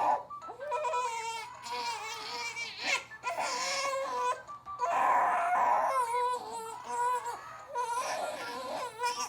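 A four-month-old baby crying in a run of short wavering wails, about half a dozen, with brief breaks between them.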